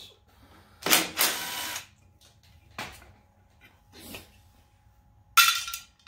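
Cordless drill spinning out the valve-cover bolts on a Briggs & Stratton OHV engine in two short runs, one about a second in and one near the end, with a few light metallic clicks between them.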